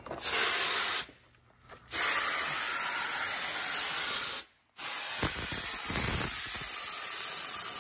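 Compressed air hissing loudly out of a Peterbilt 389's air tanks in three blasts, a short one then two long ones, each cut off suddenly: the truck's air system being drained.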